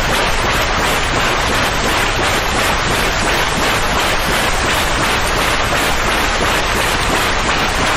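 Steady white-noise hiss, even and unchanging, with no tone or rhythm in it: the kind of continuous soothing noise played to calm a colicky baby.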